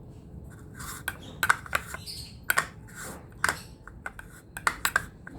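Kitchen utensils clicking and scraping against cookware in irregular, sharp strokes, starting about a second in.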